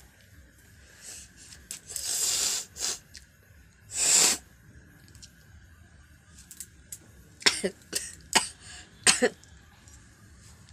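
A woman sneezing, set off by tickling her nose with the end of her saree. There is a long breathy burst about two seconds in and a loud sneeze about four seconds in, then a quick run of five short, sharp sneezes near the end.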